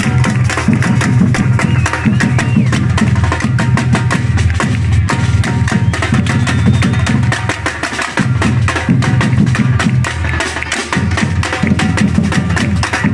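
Live percussion ensemble playing a loud, driving drum rhythm: deep bass drums pulsing under rapid, sharp higher strokes.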